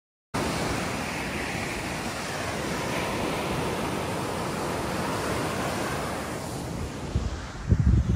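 Surf washing onto a beach, with wind on the microphone; the sound cuts in abruptly a moment in. Near the end, gusts buffet the microphone with a few loud, low rumbles.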